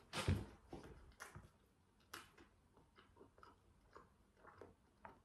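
A bite into a McDonald's cheeseburger at the start, then faint close-up chewing with small mouth clicks a few times a second.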